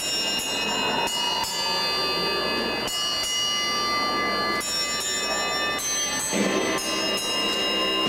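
A rack of hanging bells struck one at a time by an industrial robot arm, playing a slow tune of separate notes. Each note rings on under the next.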